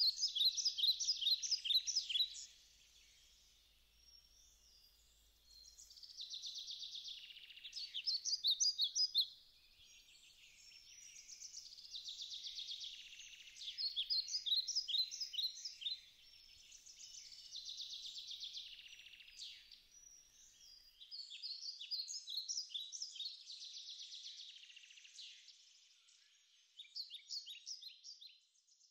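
Bird song: phrases of rapid high chirps and trills, each a couple of seconds long, repeating every few seconds.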